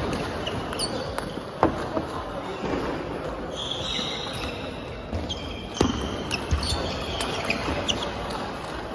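Table tennis balls being hit with rackets and bouncing on the tables, heard as irregular sharp clicks over a background of voices and hall noise.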